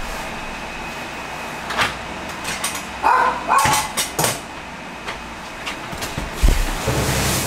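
An apartment front door's latch clicks as the handle is worked, and the door opens and shuts with a low thud near the end. A dog gives a short bark about three seconds in.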